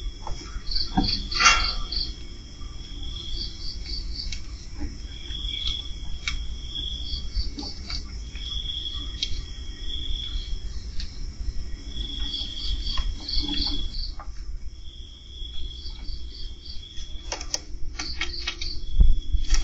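Crickets chirping at night in repeated trills about a second long, with a higher pulsing chirp between them, over a steady low rumble. Scattered sharp clicks come and go, most around a second in and near the end.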